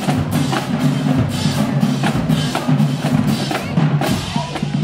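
Marching band drumline playing a cadence: snare drums cracking and bass drums booming in a fast, steady beat.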